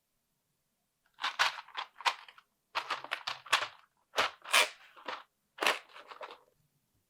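Plastic packaging crinkling as it is handled and opened, in several short clusters of rustles.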